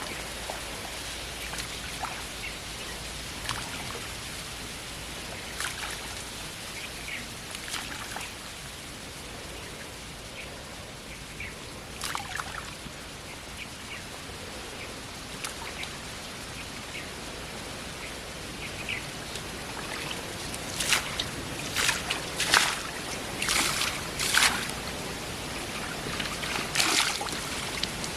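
Water trickling and splashing at a pond under a steady hiss, with a few short bird chirps. Several louder splashes come in the last several seconds.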